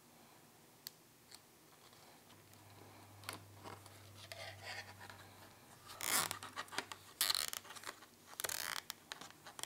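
Nylon zip tie being threaded and pulled tight through its ratchet head, with about three short zipping pulls in the second half, amid light clicks and scrapes of plastic parts being handled.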